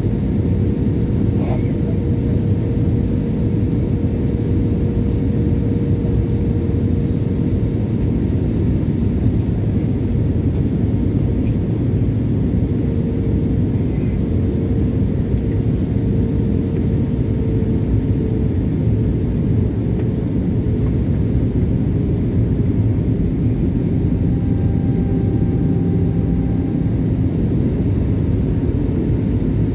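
Steady cabin noise inside an Airbus A320 airliner in flight: the low, even rush of airflow and jet engines, with a faint steady hum above it.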